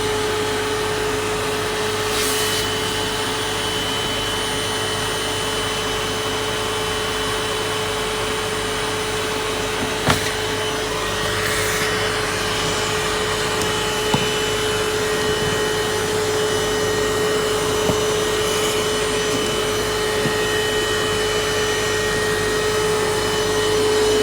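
Vacuum cleaner motor running steadily with a constant whine over its airflow noise, with a sharp click about ten seconds in.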